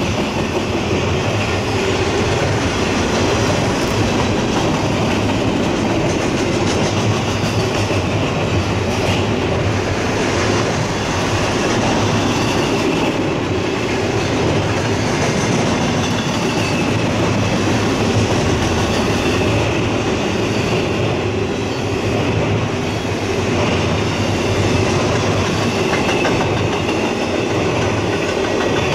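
Cars of a CSX intermodal freight train rolling steadily past on the rails.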